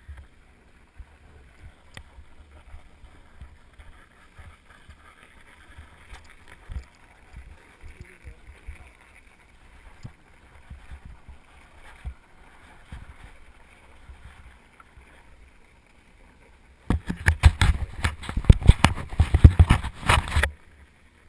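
Snowboard sliding on packed piste snow, picked up by a camera on the rider: a faint low rumble of the board over the snow with scattered small scrapes and clicks. About three quarters of the way in it turns much louder and rougher for a few seconds, a rushing, crackling din of the board and wind on the microphone at speed, then drops away just before the end.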